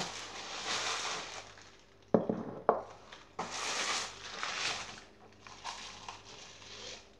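Plastic bubble wrap rustling and crinkling as it is pulled off a ceramic bowl. There are three sharp knocks between about two and three and a half seconds in, as the ceramic bowl is set down on the wooden table.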